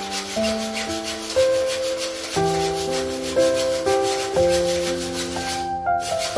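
Hand hacksaw rasping through an aluminium door profile in fast, even back-and-forth strokes, about four or five a second. Background music with held, changing notes plays underneath.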